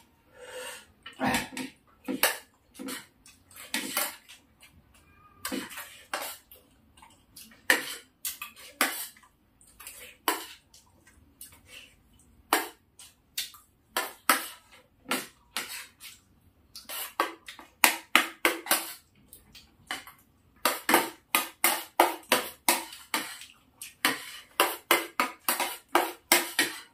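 Two people eating with spoons: metal spoons clink and scrape on plates, along with chewing and lip-smacking. The sounds come as many short clicks, with quick runs of them in the second half.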